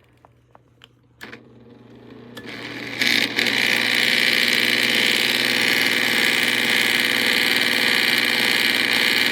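Small ceramic space heater's fan: a few faint clicks, then the motor whirs up over about two seconds and settles into a steady, even run.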